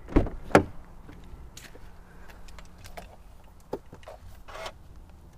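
BMW 1 Series driver's door being opened: two sharp clicks as the handle is pulled and the latch releases, then a few lighter clicks and knocks as the door swings open.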